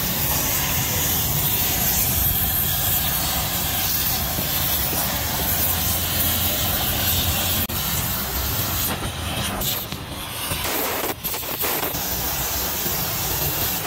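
Gas torch flame hissing steadily over a low rumble as it heats a cast tractor gearbox housing, broken by a few brief dips about two-thirds of the way through.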